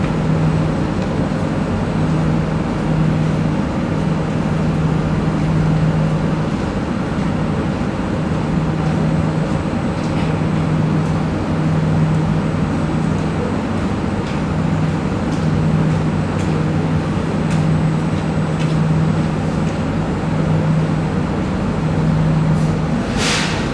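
Steady hum of a Singapore MRT train standing at a platform with its doors open. A low tone in the hum swells and fades every second or two, and a short hiss comes near the end.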